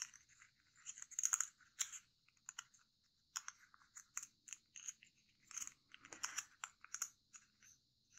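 Kami origami paper folded into a small model, handled and pressed between fingers: faint, irregular crinkles and crackles of paper.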